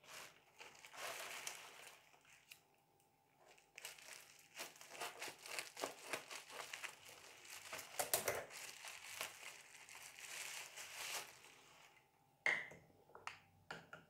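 Bubble wrap crinkling and crackling as a wrapped cup is unpacked by hand, in irregular stretches with short pauses, followed by a short tap near the end.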